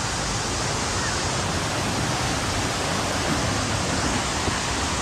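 Waterfall rushing: a loud, steady, even noise of falling water.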